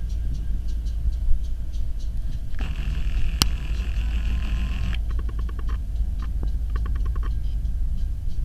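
Steady low rumble of a BNSF diesel locomotive running nearby. A hiss begins a few seconds in and lasts about two seconds, with one sharp click, and a run of rapid clicks follows.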